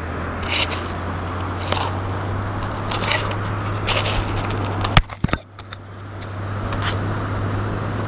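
Scraping, rustling and knocking as a steel sand scoop and gloved hands are handled, with a sharp knock about five seconds in, over a steady low hum.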